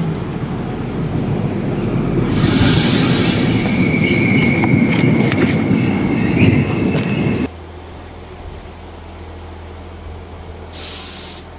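Passenger train rolling past with a steady rumble and high metallic wheel squeal building from about two seconds in. The sound cuts off abruptly about seven and a half seconds in, leaving a quieter low hum, and a brief hiss comes near the end.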